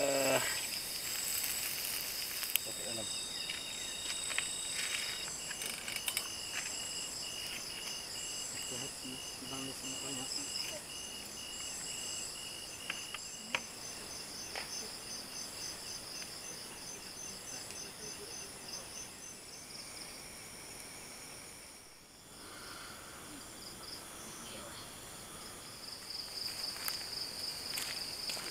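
A chorus of crickets and other night insects chirring in several steady high-pitched trills, one of them pulsing quickly, with a few faint clicks. The sound dips briefly about three-quarters through, then a louder pulsing trill takes over near the end.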